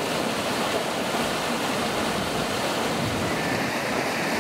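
Canal water pouring over a concrete weir: a steady rushing noise.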